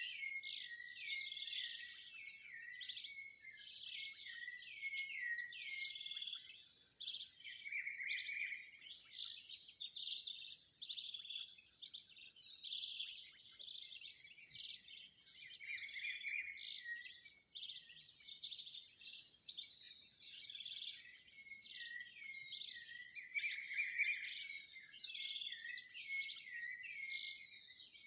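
Dawn chorus of many birds chirping and calling at once, short repeated falling notes overlapping, over a steady high insect drone.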